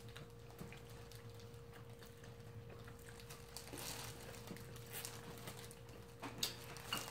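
Faint chewing and mouth smacking of two people eating fried chicken, soft scattered clicks, over a steady faint hum.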